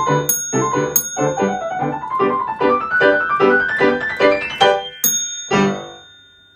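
Piano playing a brisk, bouncing chordal accompaniment, with a bright bell dinging at the start, a second in and once more just before the end, like a typewriter's carriage-return bell. A run climbs upward to a final chord struck about five and a half seconds in, which rings out and fades.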